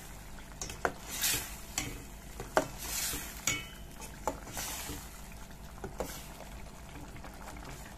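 A metal spoon stirring thick fish curry in a stainless steel pot, clinking and scraping against the pot in irregular strokes. The stirring dies down about six seconds in.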